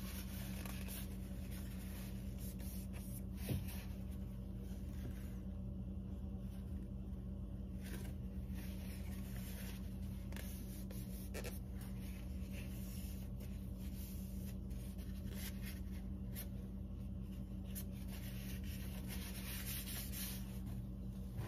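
Paper towel rubbing over an oiled carving knife's blade and wooden handle, wiping off the excess vegetable oil: soft faint scuffing, with a steady low hum underneath.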